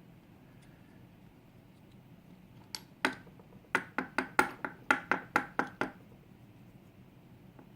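A quick run of about a dozen sharp knocks, roughly four a second, about three seconds in, from lock parts being tapped on a hard surface while a pin-tumbler lock is taken apart.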